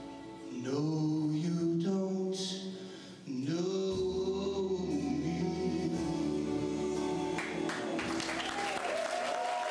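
A man singing into a microphone, holding long notes with vibrato over soft accompaniment. Audience applause rises near the end.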